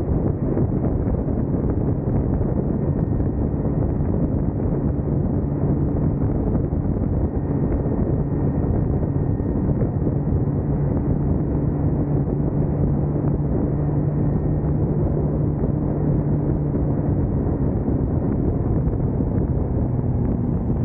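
Husqvarna Svartpilen 401's single-cylinder engine running at a steady cruising speed, its even hum under heavy wind rush on the microphone.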